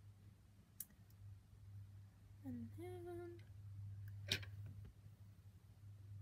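Faint steady low hum with a short hummed vocal note about halfway through. There are sharp clicks about a second in and about four seconds in; the second click is the loudest sound.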